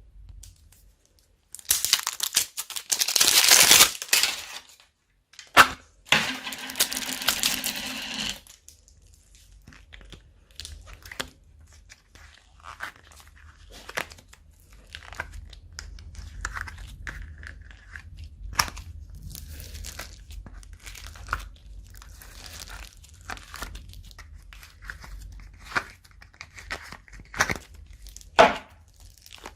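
Slime being stretched, squished and mixed by hand, with sticky crackling and popping. Two loud stretches of crackling come in the first eight seconds, then quieter scattered clicks and pops.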